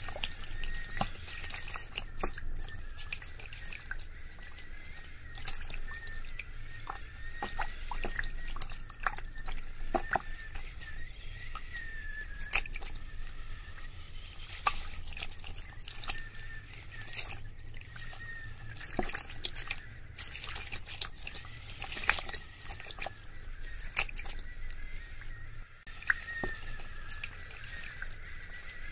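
Water dripping and trickling, with irregular single drops landing every second or so over a faint, wavering high tone.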